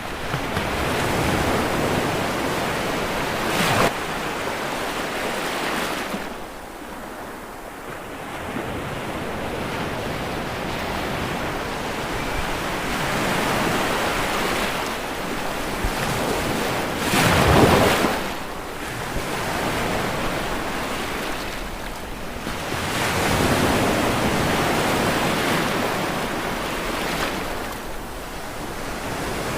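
Sea waves breaking and washing on a shore in slow swells, one louder wave crashing a little past halfway.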